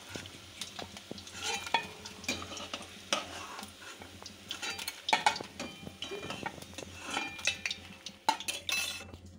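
Metal spatula scraping and clinking against a kadai as fried whole eggs are lifted out of the hot oil onto a plate, with the oil sizzling and crackling. The clatter stops shortly before the end.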